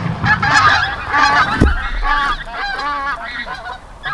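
A flock of geese honking, many calls overlapping, growing fainter toward the end, with one low thump about one and a half seconds in.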